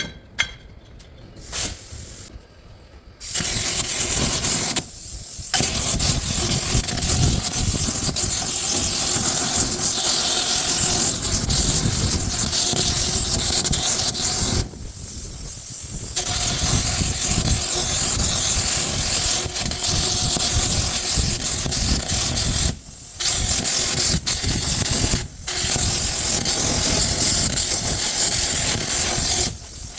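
A loud, steady hissing rush of gas or air that starts about three seconds in and cuts out briefly four times.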